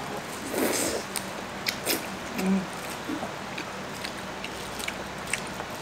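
Mouth-close eating of king crab: chewing and biting, with scattered small clicks and crackles of crab shell being handled. A short hum about two and a half seconds in.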